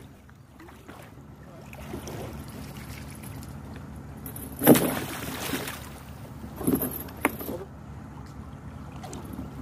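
Water splashing and a metal chain rattling as a chain is hauled up out of the river and let back down into it. The loudest splash and rattle comes about halfway through, with smaller ones a couple of seconds later.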